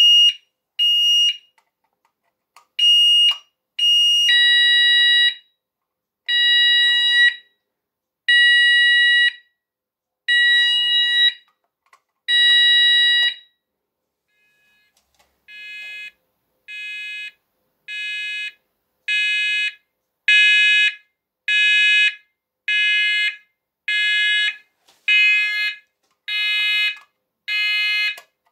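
Sonos DC multi-tone fire alarm sounder (Chubb/Esser) beeping through its tone patterns: a few short high-pitched beeps, then a lower tone pulsing about one second on, one second off. After a brief pause a different pulsed tone starts, about one pulse a second, growing louder over its first few pulses; the patterns change as its DIP switches are set to select the tone.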